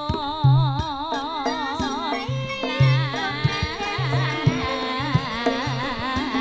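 Javanese gamelan music accompanying tayub dancing: a singer holds long notes with a wide, wavering vibrato over deep drum strokes that come every half second or so, and the ensemble grows busier from about halfway through.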